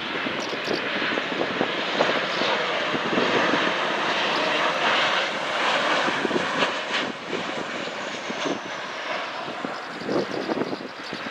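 Aircraft engines of a passing airliner: a steady roar, loudest in the first half and fading toward the end, with a faint high whine that slides down in pitch as the plane goes by.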